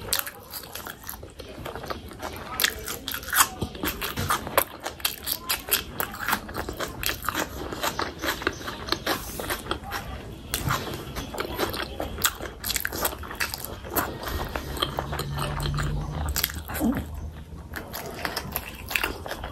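Close-miked eating sounds: a person biting and chewing fatty pork and raw onion, with many crisp crunching clicks.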